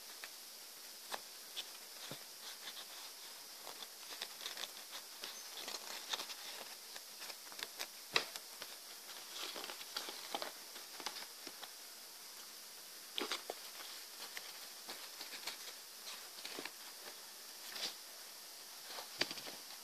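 Origami paper crinkling and rustling as it is folded, creased and fitted together by hand, in irregular small crackles and clicks over a faint steady hiss.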